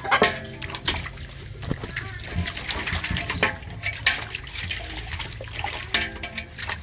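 Water splashing and sloshing in a metal washbasin as a dog is bathed in it, a run of short, irregular splashes.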